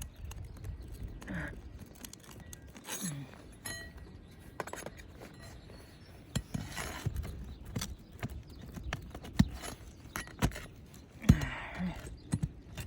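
A metal roofing tool scraping and clinking against brittle asphalt shingles and their nails, with scattered sharp clicks and knocks and a crackle as shingles are worked loose.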